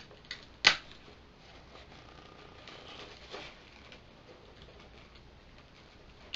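A plastic toy figure and its packaging being handled: one sharp click under a second in, then soft rustling and small taps.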